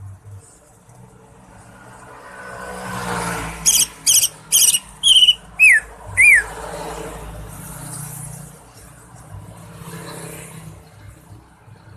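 Greater green leafbird (cucak ijo) calling: a quick run of about seven loud, sharp whistled notes a few seconds in, the last ones sliding down in pitch. A vehicle passing by can be heard underneath.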